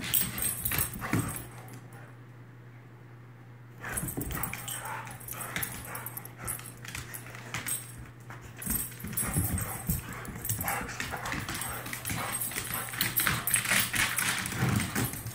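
Two large dogs play-fighting on a hardwood floor: claws clicking and scrabbling on the wood, with short dog vocalizations mixed in. There is a quieter lull of about two seconds shortly after the start.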